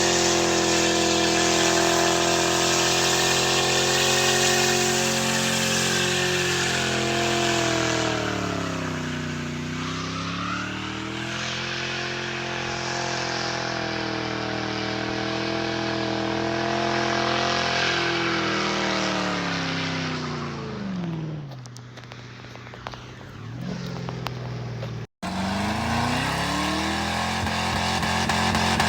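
Lincoln Town Car's V8 engine revved high and held, its pitch sagging and climbing back up once, then falling away about twenty seconds in. The sound cuts out abruptly, and the revs climb again near the end.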